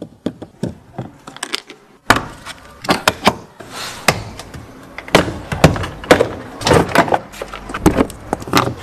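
Plastic interior trim panel of a car door being pried off, its retaining clips popping and the panel cracking and knocking in an irregular string of sharp clicks.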